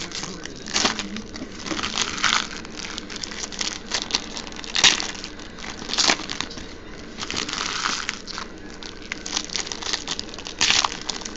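Shiny foil trading-card pack wrappers crinkling and being torn open by hand: irregular crackling with several sharp rips.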